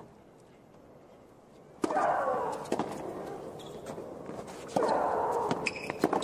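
Tennis rally: Maria Sharapova's loud shriek-grunt as she strikes her serve about two seconds in, with the sharp pop of racket on ball. Further ball strikes and bounces follow, and a second long shriek comes with her groundstroke about five seconds in.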